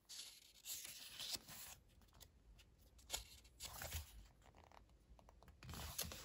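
Faint, soft rustling of paper as the pages of a small paperback guidebook are turned and handled, in several short brushes.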